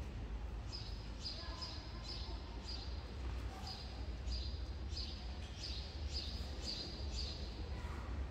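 A small bird chirping over and over, short high chirps about one and a half to two a second, over a steady low hum.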